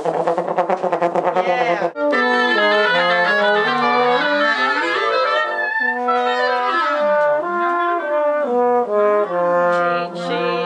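French horn warming up with a fast stream of rapidly repeated notes, then, after an abrupt cut about two seconds in, wind instruments playing quick runs of notes that climb and fall, two lines at times moving in opposite directions.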